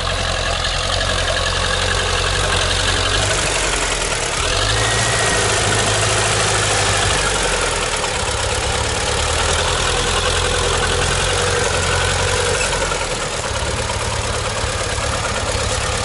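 Soviet T-40 tractor's air-cooled four-cylinder diesel engine running steadily under load as it pulls a plough through the soil, its note shifting slightly a few times.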